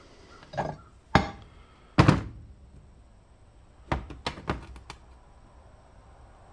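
Heavy metal parts from a cast-iron wood planer/jointer knocking as they are handled during teardown. Three hard thunks come in the first two seconds, the third the loudest with a short ring after it. A quick run of about six lighter knocks follows around four to five seconds in.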